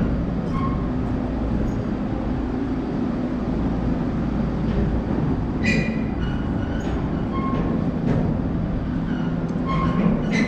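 New York City subway train running on the tracks with a steady low rumble. Brief high-pitched metallic squeaks and clanks come about six seconds in and again near the end.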